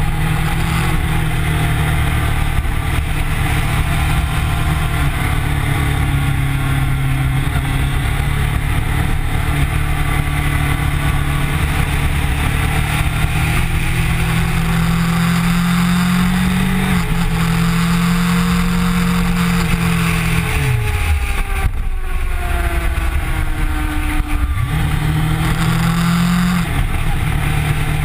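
Kawasaki Ninja sport bike engine under way, heard with wind and road rush. The engine note climbs and then steps down as the bike shifts up, falls away as the throttle is rolled off about three-quarters of the way through, and climbs again before another upshift near the end.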